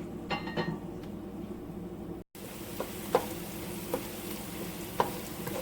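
Chopped onion and carrot frying in oil in a pot, sizzling steadily, with a spoon knocking against the pot now and then as they are stirred. After a brief dropout about two seconds in, the sizzle is louder.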